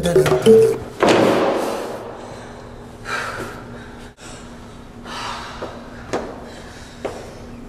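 A loud thump about a second in that dies away over about a second, then a woman's heavy breathing, two breaths, and a couple of footsteps on a hard hallway floor.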